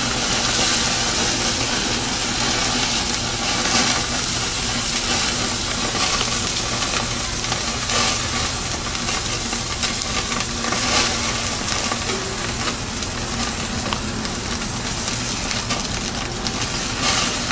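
Burgers sizzling on a propane grill over open flame: a steady, even sizzle with a few faint pops.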